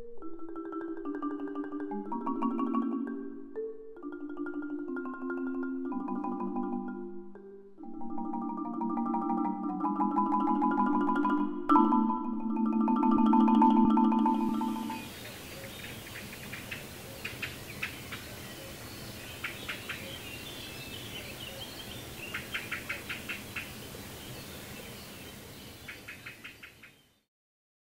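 Mallet-percussion music with clear pitched notes for about the first fifteen seconds. Then outdoor ambience: a steady hiss with repeated short, rapid high chirps. It fades out near the end.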